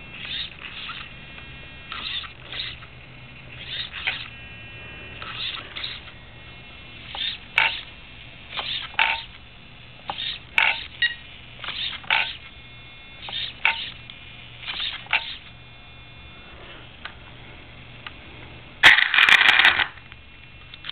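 Steering servo of a Traxxas E-Maxx RC truck whining in short paired bursts about every one and a half seconds as the steering swings back and forth. Near the end comes a louder, harsher burst lasting about a second.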